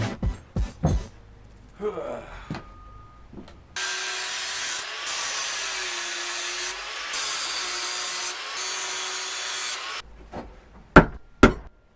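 Electric power tool cutting or working wood, running steadily for about six seconds with its motor whine dipping in pitch under load, after a few sharp knocks.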